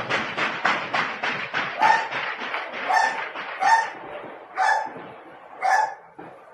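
A dog barking about five times, roughly a second apart, the barks growing fainter toward the end. In the first couple of seconds a fast run of sharp cracks sounds under the barking.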